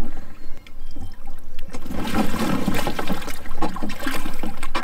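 Water pouring and splashing out of a swamped folding plastic kayak as it is turned over on the lake, getting louder about two seconds in.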